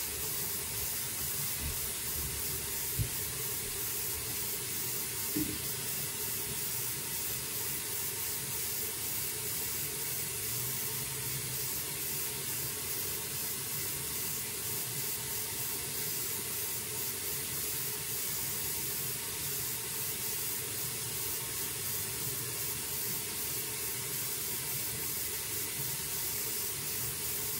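A steady, even hiss, with two light knocks a couple of seconds apart.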